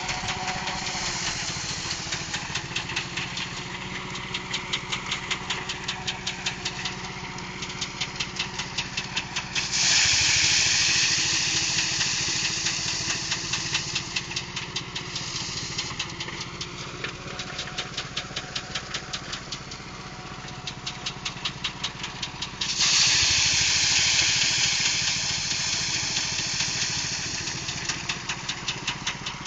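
Engine-driven rice threshing machine running, its small engine beating in a rapid, steady pulse. Twice, about ten seconds in and again a little past twenty seconds, a loud rushing hiss starts abruptly and fades away over several seconds.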